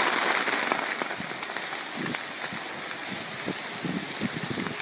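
Heavy thunderstorm rain falling and pattering steadily, with some irregular low thumps and rustles in the second half.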